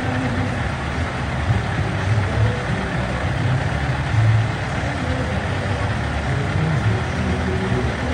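Vehicle engines idling at low speed, a steady low rumble.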